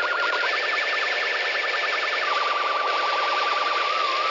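Low-fi electronic noise: a siren-like warbling tone with a fast, deep wobble over a steady hiss. It jumps up in pitch about half a second in, drops lower about two seconds in, and slows to a gentle wobble near the end.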